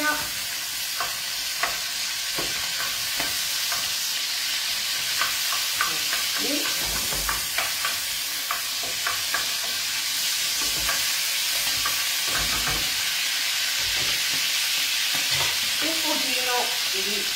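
Soffritto of garlic, chili and anchovy sizzling steadily in olive oil in a pan, with a wooden spoon stirring and knocking against the pan now and then.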